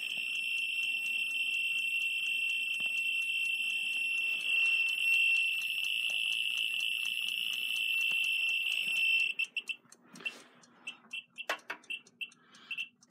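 Geiger counter's speaker giving a near-continuous, high-pitched buzz of clicks, the sign of a very high count rate from a piece of uranium-bearing pitchblende ore held at the probe. About nine seconds in, the buzz breaks up into separate clicks as the count rate drops.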